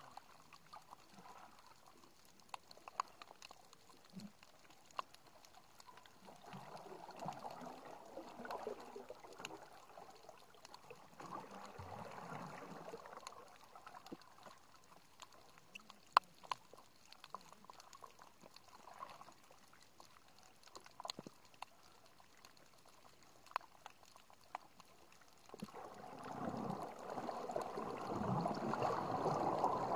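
Underwater sound from a camera sitting on the reef floor: water gurgling and sloshing in slow swells, with scattered sharp clicks and crackles. The water sound rises to its loudest near the end.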